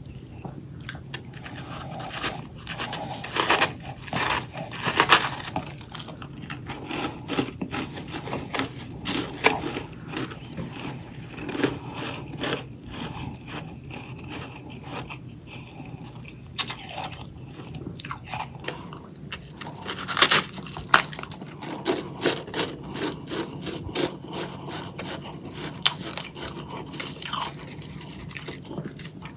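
Crunching and chewing of a chunk of powdery freezer frost: irregular crisp crunches and crackles, louder bites in clusters a few seconds in and about two-thirds of the way through.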